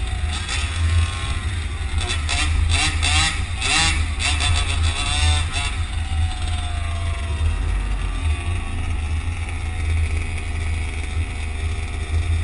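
RC car motor whining as the car speeds up and slows down, its pitch rising and falling several times in the first half and then sliding down slowly, over a steady low rumble of traffic.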